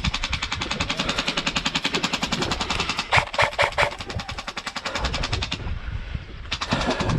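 Airsoft gun firing a long, rapid full-auto burst of evenly spaced shots, stopping about five and a half seconds in. A second burst starts a second later.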